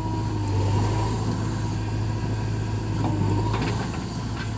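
Diesel engine of a backhoe loader and tractor running steadily at work, with a few faint clanks about three seconds in.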